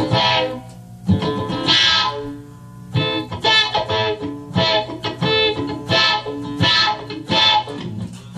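Electric guitar played on its own, chords in short phrases with brief breaks between them.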